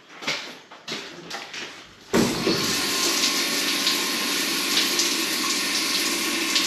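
A few faint knocks, then about two seconds in a shower comes on suddenly and the water runs steadily, splashing in a small corrugated-iron shower stall.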